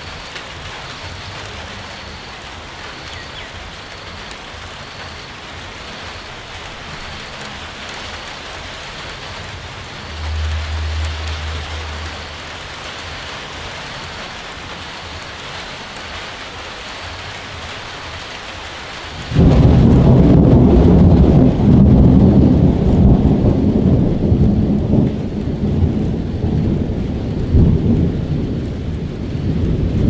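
Steady rain falling, with a short low rumble about a third of the way in. About two-thirds through, a sudden loud peal of thunder breaks and rolls on as a long, heavy rumble.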